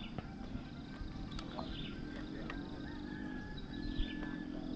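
Outdoor ambience with birds chirping and a low droning hum, and a single light click about four seconds in.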